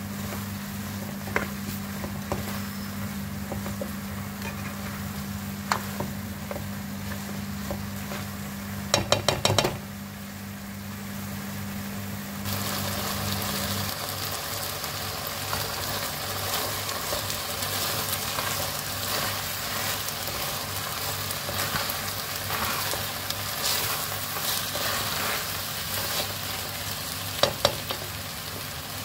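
Lentils, diced potatoes and tomato paste sizzling as they fry in an aluminium pot while a spoon stirs them; the sizzle gets louder about twelve seconds in. A few sharp knocks, with a quick rattle of them about nine seconds in, and a steady low hum that stops about halfway through.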